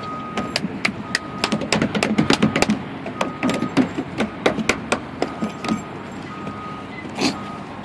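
An irregular run of sharp knocks and taps on a wooden deck, noise made on purpose to flush out a hiding duck. The knocks come thickest through the middle, with one louder knock near the end.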